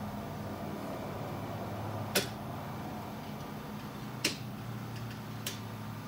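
Three sharp metallic clicks, roughly a second or two apart, from a steel pick working at the rim of a 4L60E/4L65E 3-4 clutch drum while the clutch pack's snap ring is seated, over a steady low shop hum.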